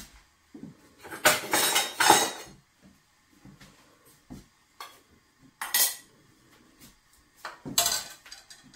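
Metal kitchen utensils clanking and clattering: a metal ladle and a small metal funnel knocked together and set down. A long clatter comes about a second in, then single clanks near the middle and near the end.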